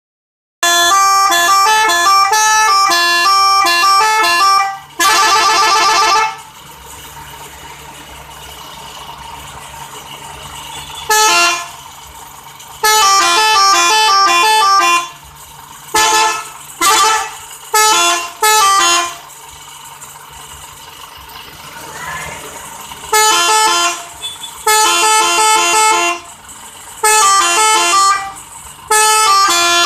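Telolet multi-tone musical horn on a FAW vehicle, playing rapid melodic note sequences in repeated loud bursts. There is a fast warbling run about five seconds in and a string of short toots a little past the middle. A steady low hum carries on between bursts.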